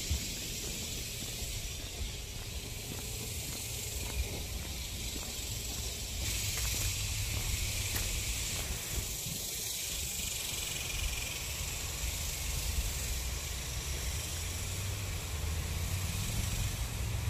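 Waterfall's water rushing steadily: a continuous hiss with a low rumble underneath.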